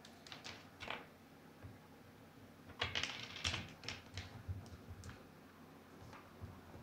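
Light clicks and taps from a cat pawing and nosing at small objects on a hard surface, in a short flurry at the start and a busier one about three seconds in.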